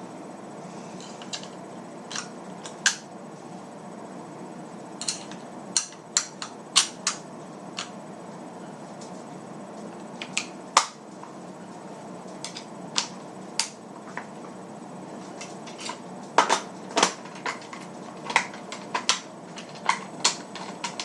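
Shotgun parts clicking and clacking as the gun is reassembled by hand. Irregular sharp clicks and knocks, some single and some in quick runs, over a steady background hum.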